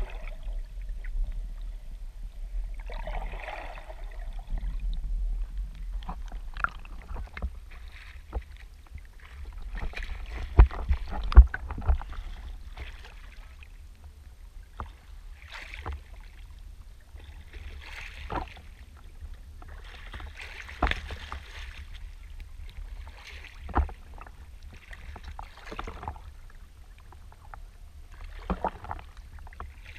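Water splashing in repeated strokes every two to three seconds, with a few sharp knocks, over a low wind-like rumble.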